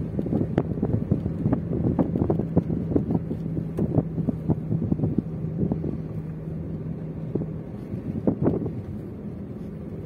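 A car driving along a road, its engine and road noise a steady hum. Wind buffets the microphone in frequent irregular thumps, busiest in the first half and again near the end.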